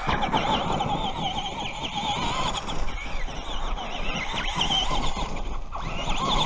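Radio-controlled monster truck's motor whining, its pitch wavering up and down constantly as the throttle changes, over a rough gritty noise.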